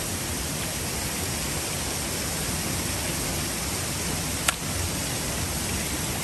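Steady rushing of a shallow, rocky river, with one sharp click about four and a half seconds in.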